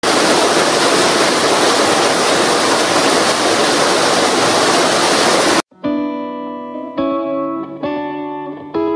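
Waterfall: a steady, loud rush of falling water that cuts off suddenly about five and a half seconds in. Plucked guitar music follows, a new note about every second.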